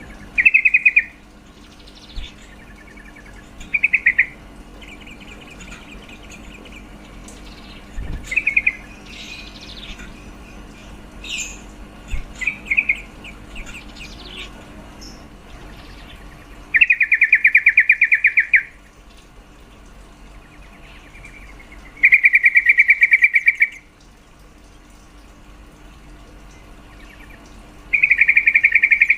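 Female yellow-vented bulbul (trucuk) giving fast chattering trills: short bursts early on, then three longer trills of about two seconds each. These are the mating calls used to stir a male into song. Fainter chirps and a low steady hum sit in the background.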